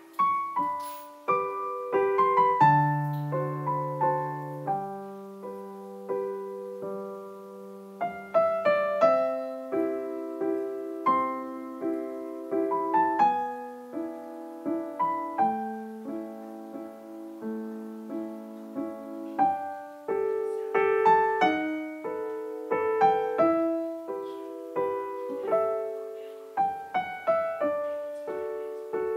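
Background piano music: a gentle, unhurried melody of struck notes and chords that ring and fade.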